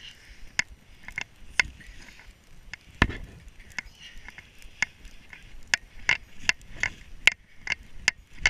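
Footsteps crunching in snow at a walking pace, about two crisp crunches a second, getting slightly quicker in the second half.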